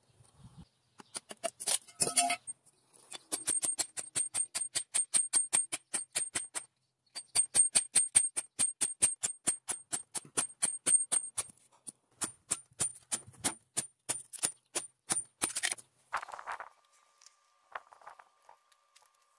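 Rapid metallic clicking, about seven clicks a second, in three runs of a few seconds each with short pauses between. A short rustling burst follows near the end, then a faint steady tone.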